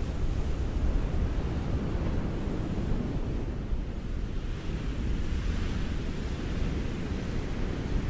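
Ocean surf: a steady, deep rumble of waves with a hiss of breaking water that swells about halfway through.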